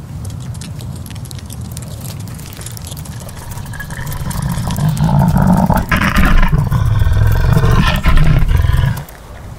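Sound-designed monster roar for a horror film. A deep rumble swells from about three seconds in and grows loud, with a rough, pitched cry laid over it, then cuts off suddenly near the end.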